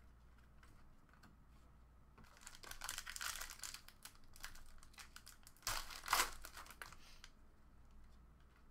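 Foil trading-card pack wrapper crinkling and tearing as the pack is opened by hand, in two spells about two seconds in and again, louder, around six seconds in, with light clicks of cards being handled before and after.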